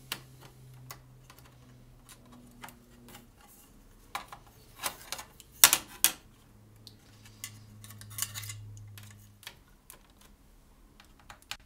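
Small screwdriver and tiny screws clicking and scraping against a laptop's drive bracket and case while the bracket is screwed back in: scattered sharp clicks, bunched in the middle with the loudest about halfway.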